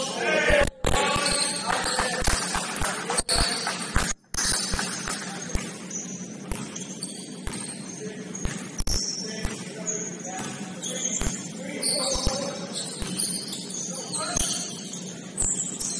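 Basketball game on an indoor court: sneakers squeaking in short high chirps, the ball thumping on the floor now and then, and players' voices.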